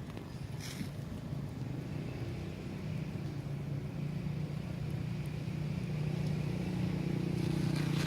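A motor vehicle's engine running steadily and growing louder as it approaches.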